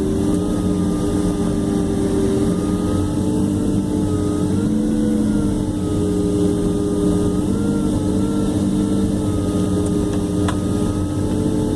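Jet airliner's engines at taxi idle heard from inside the cabin: a steady whine of several held tones over a low rumble, the pitch wavering slightly now and then.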